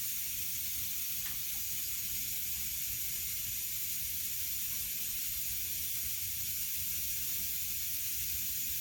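Steady hiss with a low hum underneath, unchanging throughout, with no distinct knocks or clicks.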